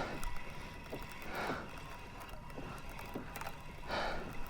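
Fishing reel being worked against a hooked fish: light mechanical clicking, with a few soft swishes of water or line.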